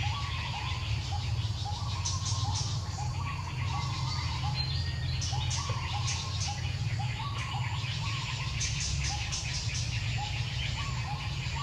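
Wild bird repeating a short rising call about twice a second, over bursts of higher chirping and a steady low rumble.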